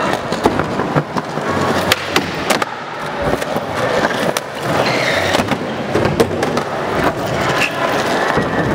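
Skateboard wheels rolling on a concrete floor, with repeated sharp clacks and knocks of the board against the floor.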